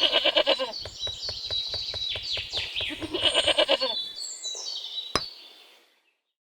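Goats bleating in quavering calls that fade out, with a single sharp click about five seconds in.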